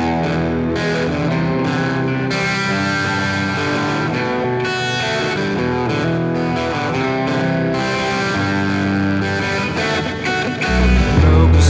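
Alternative rock song in a guitar-led instrumental passage, the heavy bass dropped out. About eleven seconds in, the low end comes back and the full band gets louder.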